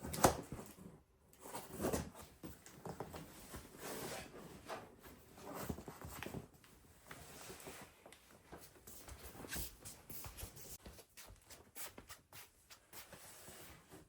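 Irregular light knocks, taps and rustles of household objects being handled and set down, with the loudest knocks in the first two seconds.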